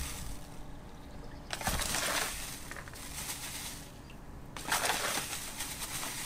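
Spoonfuls of granulated sugar scooped and sprinkled into a cast-iron kazan of soy sauce and water, a soft hiss for each spoonful, twice about three seconds apart.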